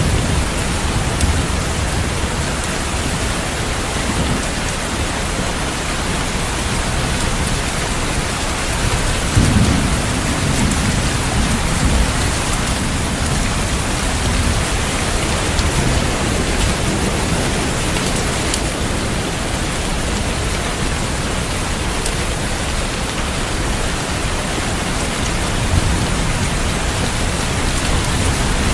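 Steady rain falling, with a low rumble of thunder swelling about a third of the way in.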